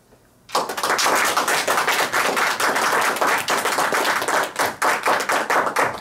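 Audience applauding, starting suddenly about half a second in.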